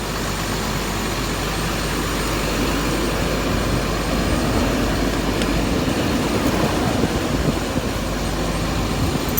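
Steady rumble and hiss of a running engine, growing a little louder about halfway through.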